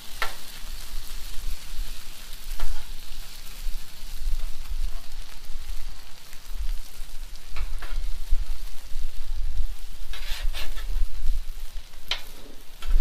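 Steak and onions sizzling on a Blackstone flat-top griddle, with several sharp scrapes and clacks of metal spatulas against the steel cooktop.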